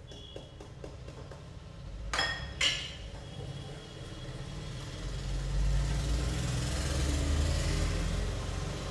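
A metal sieve clinks twice against a bowl about two seconds in, then semolina is beaten by hand into a thick cake batter in a glass bowl: a steady stirring and scraping noise with a heavy low component, louder from about five seconds in.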